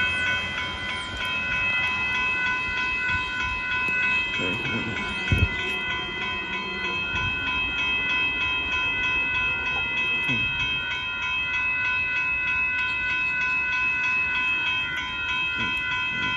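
Railroad grade-crossing warning bell ringing rapidly and steadily, signalling an approaching train, with a short thump about five seconds in.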